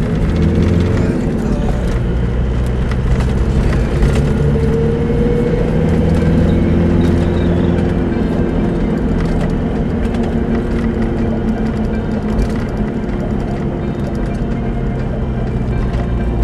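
Car engine running at low speed with tyre and road noise, heard from inside the cabin, its pitch rising briefly about a third of the way in. Scattered small clicks and knocks from the rough lane surface run through it.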